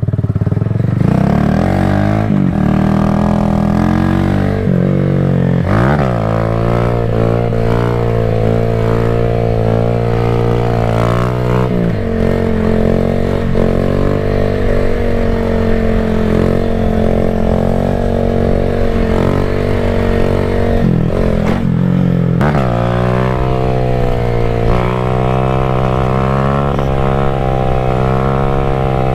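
Motorcycle engine running under throttle while ridden, its pitch rising and falling with the throttle and dropping sharply twice as the gears change.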